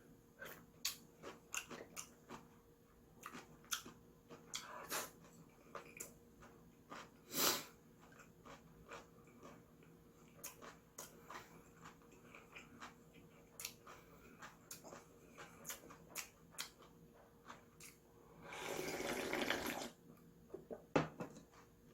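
Someone eating instant ramen up close: small wet chewing and clicking sounds throughout, with a long slurp about nineteen seconds in.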